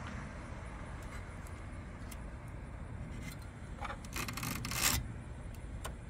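Handling noise: a few light clicks, then a dry rubbing scrape lasting about a second, loudest about five seconds in, over a steady low rumble.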